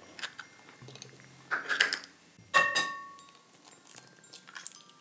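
Eggs being cracked on the rim of a mixing bowl and broken into it: a few sharp taps. The loudest, about halfway through, sets the bowl ringing briefly.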